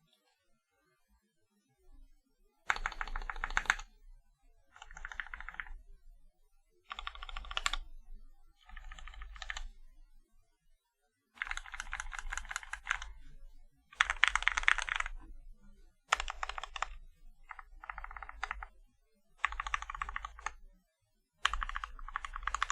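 Mechanical keyboard (Tofu65 with lubed 62g Zealios V2 tactile switches) being typed on in quick runs of keystrokes, about ten runs of one to two seconds each, separated by short pauses.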